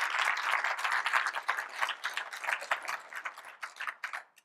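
An audience applauding, many hands clapping at once, thinning to scattered claps and dying away near the end.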